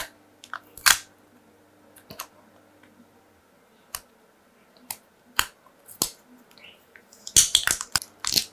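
Sharp crackling clicks and snaps of an adhesive-backed Oppo phone battery being peeled by hand from the phone frame. They come sparsely at first, then in a quick cluster near the end as the battery lifts.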